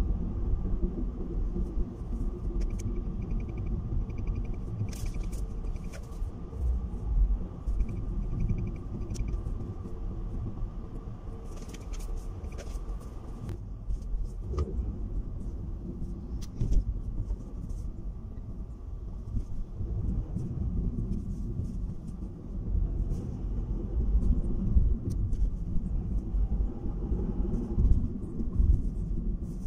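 Low, steady rumble of a car's engine and tyre noise heard from inside the moving car.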